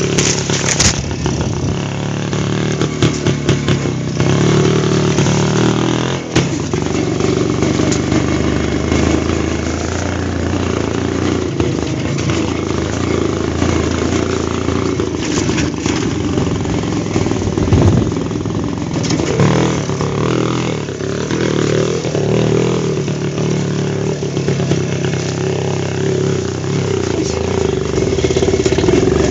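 WSK motorcycle's two-stroke single-cylinder engine running while it is ridden over rough off-road ground, its pitch rising and falling with the throttle. Scattered sharp knocks come from the bike jolting over the terrain.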